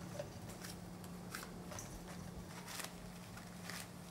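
Fresh oyster mushroom clusters being torn apart by hand: soft, crisp tearing and snapping sounds, about ten at irregular intervals, over a faint steady hum.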